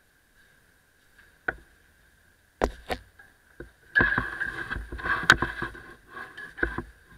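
Equipment knocking against the brick walls of a sewer: a few separate knocks, then a couple of seconds of dense clattering and scraping with one sharp knock in the middle, over a faint steady high tone.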